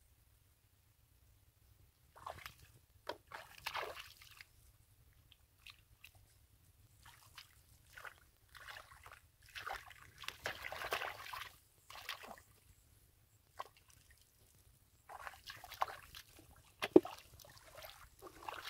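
Bare hands groping and scooping through shallow muddy water and soft mud, making wet splashes and squelches in irregular bouts with quiet pauses between, feeling for fish. One sharp click near the end is the loudest sound.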